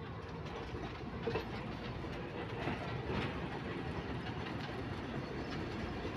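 Narrow-gauge train rolling slowly past: the wooden carriages clatter with a few knocks over the rail joints, and the low running of the diesel locomotive grows gradually louder as it comes alongside.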